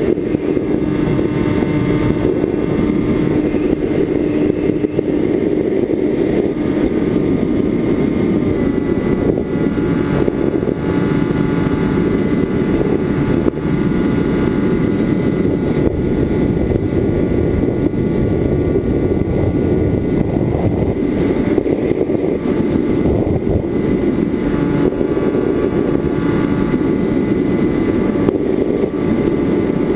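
Electric motor and propeller of a HobbyKing EPP foam FPV plane heard from its onboard camera in flight: a steady droning whir mixed with rushing air, its pitch dipping slightly about eight seconds in.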